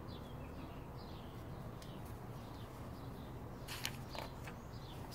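Small birds chirping faintly and intermittently, with a brief paper rustle about four seconds in as a page of the book is turned.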